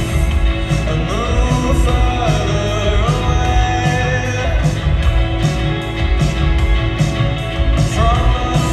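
Live rock band playing over a theatre PA: drums, bass and electric guitars with a sung vocal melody, heard from the audience.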